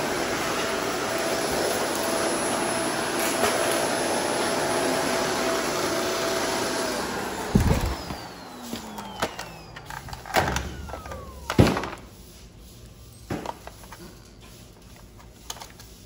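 Shark Apex upright vacuum running steadily, then switched off about seven seconds in, its motor winding down with a falling whine. Several sharp knocks and clacks follow as the vacuum is handled, laid down and turned over.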